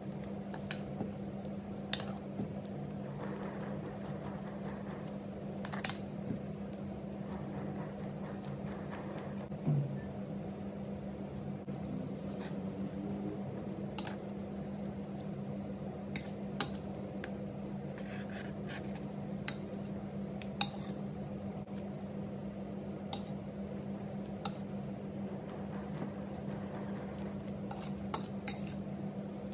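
Metal offset spatula spreading whipped cream on a cake, with occasional sharp clicks as the blade knocks against the cake stand and the bowl of cream, over a steady low hum.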